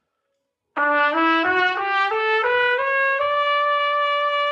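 Trumpet playing an ascending E major scale: starting about a second in, eight quick even notes step up an octave, and the top note, the high E, is held steadily.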